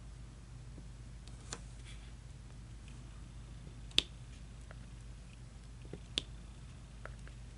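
Diamond painting at work: a few small, sharp clicks and taps of the drill pen setting resin drills onto the canvas, three clearer ones roughly two seconds apart with the loudest in the middle, over a low steady hum.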